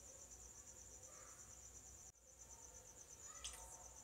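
Near silence: room tone with a faint, steady, high-pitched pulsing trill in the background, which drops out briefly about halfway through.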